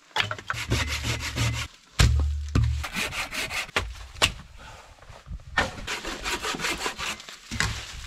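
Firewood branches and logs being handled and laid on a bed of dry leaves: repeated knocks and clacks of wood on wood, with scraping and leaf rustling between them. The loudest knock comes about two seconds in.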